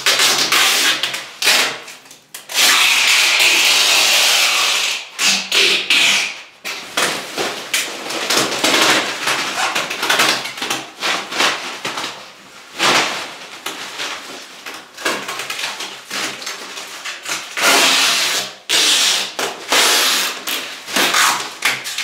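Bubble wrap and plastic packing film rustling and crinkling as they are handled, broken by several long screeching pulls of plastic off a roll, the longest lasting over two seconds.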